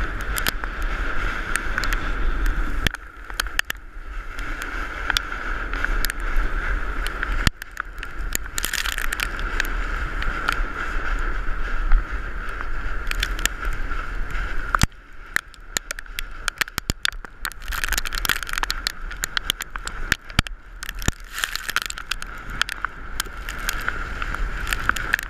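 A volcano board sliding fast down loose volcanic gravel: a continuous scraping rush full of sharp ticks and rattles from grit, with wind buffeting the body-mounted camera's microphone. The rush dips and swells a few times, notably about three seconds in and again around the middle.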